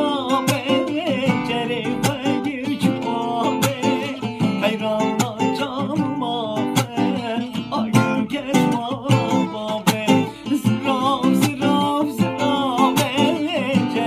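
A zirav folk song: a fast, steadily strummed plucked string instrument, with a man singing over it in a full voice.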